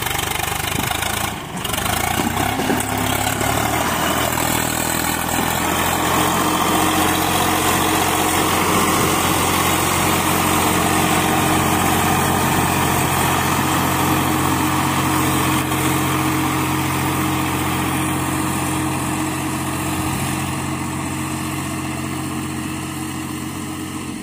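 Swaraj tractor's diesel engine running steadily while it pulls a trolley loaded with soil, the sound easing off over the last few seconds as the tractor moves away.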